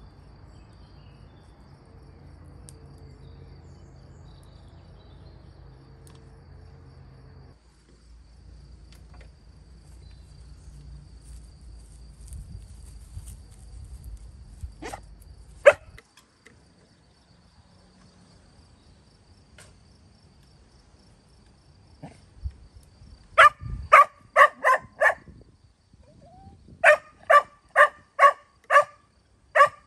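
A dog barking in two quick runs of about five barks each, in the second half. Under it is a faint, steady, high insect chirping, like crickets, and a low hum that stops about halfway through.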